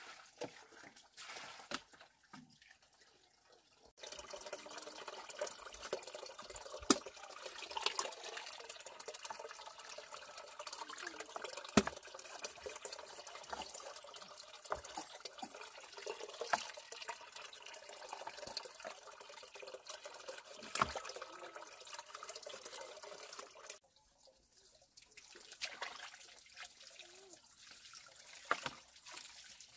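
Water running and splashing, starting suddenly about four seconds in and cut off suddenly some twenty seconds later, with scattered knocks and clinks through it.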